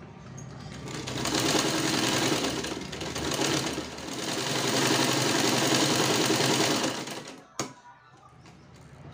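Sewing machine stitching through tent fabric, running in two stretches of a few seconds each and then stopping. A single sharp click comes about seven and a half seconds in.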